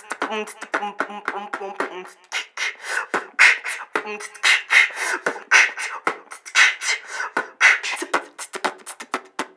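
Beatboxing: mouth percussion made into cupped hands. The first couple of seconds mix hummed pitched notes with clicks, then it turns into a steady run of sharp snare- and hi-hat-like strokes.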